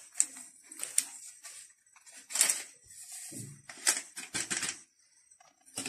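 Paper sachet of baking powder crinkling and rustling in the hand as it is emptied onto flour, a series of short irregular crackles.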